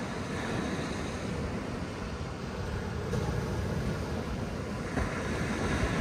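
Steady sea surf: small waves breaking and washing up a sandy beach, with a low rumble of wind on the microphone.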